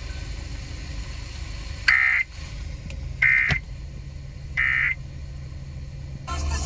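Emergency Alert System end-of-message (EOM) data tones: three short bursts of digital data tones about 1.3 seconds apart, the signal that closes an EAS alert. Beneath them is a steady low rumble, and a louder, fuller sound comes in near the end.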